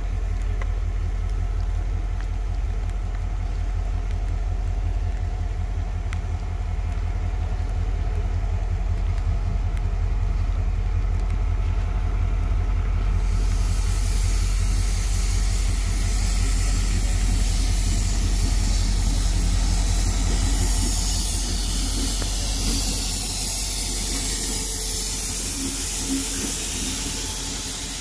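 EMD GL18B diesel locomotive's V8 645 engine running with a low, rapid throb in heavy rain. About halfway through, a loud hiss of rain sets in over it.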